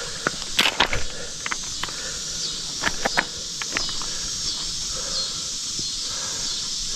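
Footsteps through mud: a run of short knocks and clicks in the first few seconds, then the steps fade out, leaving a steady high hiss.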